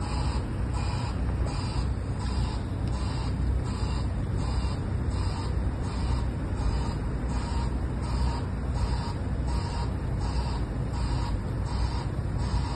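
Minibus reversing alarm beeping steadily about twice a second while the minibus backs up, over a low steady rumble.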